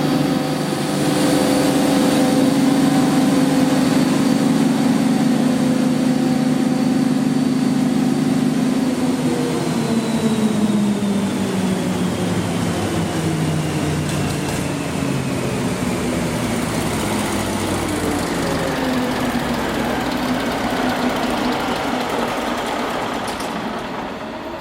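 Large Cummins diesel engine of a generator set running steadily, then slowing down from about nine seconds in, its pitch falling gradually: the engine running down in speed.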